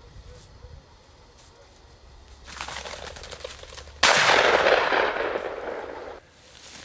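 A Fausti 28-bore shotgun fired at a flushing pheasant: a rising rustle, then a sudden loud report about four seconds in that rings on for about two seconds and cuts off suddenly.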